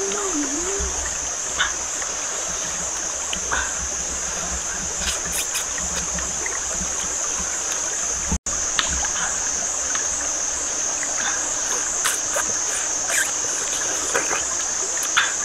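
A shallow forest stream running over rocks under a steady high-pitched insect drone, with scattered small clicks of eating and handling. A short hummed sound comes right at the start, and the sound cuts out for an instant about eight seconds in.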